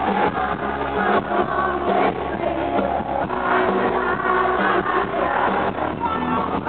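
Live rock band playing with a man singing into a microphone, heard from among a concert audience.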